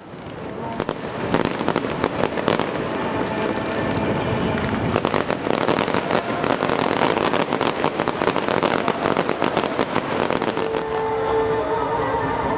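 Fireworks going off in rapid succession: a dense run of sharp bangs and crackles over a continuous rumble, thinning out near the end.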